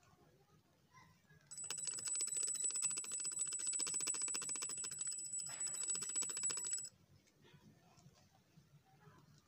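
Homemade grass cutter's 2200 KV brushless drone motor starting about a second and a half in and running with a steady high whine for about five seconds, then cutting off suddenly.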